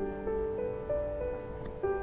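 Soft background music: a slow keyboard melody of held, piano-like notes, a new note every half second or so.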